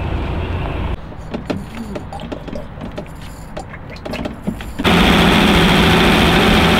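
Small clicks and knocks of hands and tools working in a boat's engine bay. About two-thirds of the way in, a loud, steady engine noise from the boat's inboard engine cuts in suddenly.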